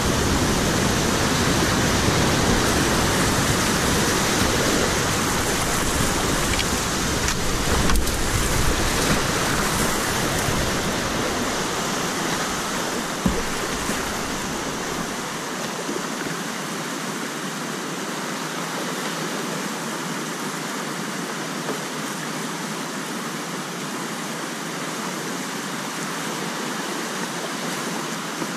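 Whitewater rapids rushing around a kayak, heard close to the water, with a few sharp splashes from paddle strokes. The deep rumble drops away about halfway through, leaving a lighter rush of water.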